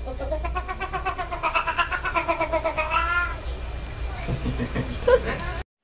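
Siamese cat yowling in one long call of about three seconds, broken into rapid stuttering pulses like a machine gun, rising in pitch and then dipping at the end. Fainter calls follow before the sound cuts off suddenly near the end.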